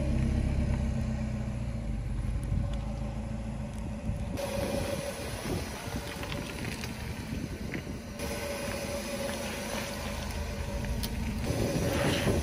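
A car engine idles while its tyre slowly rolls over small objects and crushes them, with scattered sharp crackles as crisp wafer ice-cream cones break. Near the end there is a louder squelching rush as a soaked sponge is pressed flat. The background changes abruptly twice at edits.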